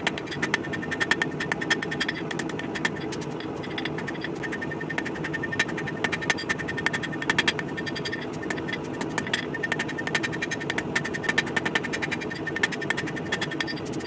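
A hand hammer striking a red-hot rebar sword blade on an anvil: runs of quick blows with short pauses between them. A steady rushing noise sits underneath.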